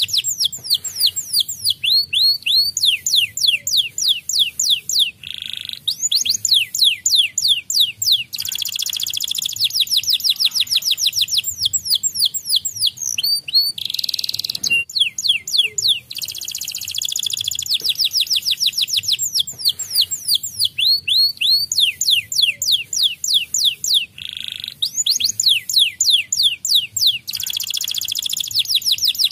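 White canary singing: long, fast trills of rapidly repeated falling notes, the phrases changing every few seconds with brief harsher rolls and short pauses in between.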